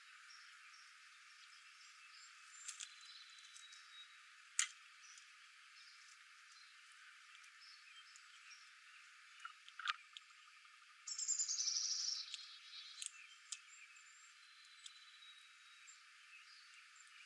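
Faint outdoor nature ambience: a steady hiss with a few sharp chips and clicks and faint thin whistled notes from small birds, and a buzzy trill lasting about a second and a half, about eleven seconds in, which is the loudest sound.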